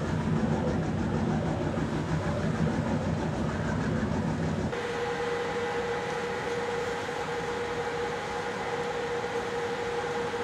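Boat engine running steadily at sea. About halfway through, the sound changes abruptly to a quieter hum with a steady whine over it.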